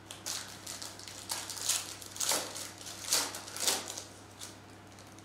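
Foil wrapper of a trading-card pack crinkling and tearing as it is ripped open by hand, a series of short rustling crackles, loudest in the middle stretch.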